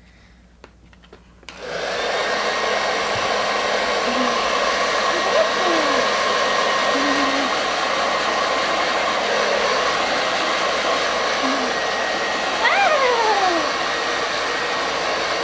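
Handheld hair dryer switched on about a second and a half in, then blowing steadily with a faint high whistle. A short whine falling in pitch sounds over it near the end.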